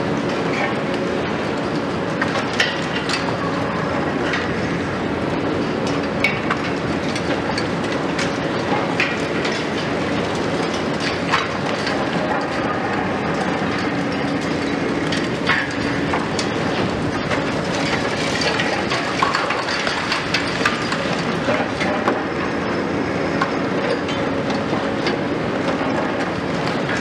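High-reach demolition excavator working: a steady diesel engine and hydraulic drone, with irregular sharp cracks and clatters of concrete breaking and debris falling.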